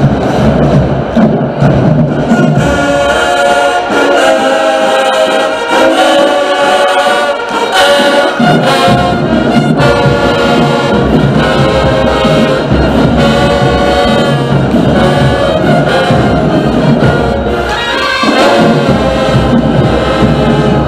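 Marching band playing loudly, led by brass horns. The brass melody comes in strongly a couple of seconds in.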